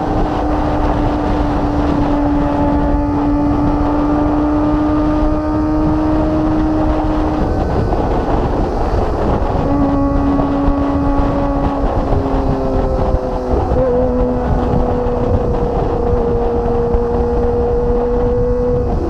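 Kawasaki ZX25R's 249 cc inline-four engine running through a Magna aftermarket exhaust while riding, with heavy wind rush on the bike-mounted microphone. The engine holds a steady pitch, then its pitch drops and shifts a few times in the second half.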